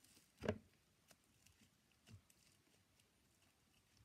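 Pink fluffy butter slime being squeezed and stretched by hand: one short pop about half a second in, then faint small clicks and crackles.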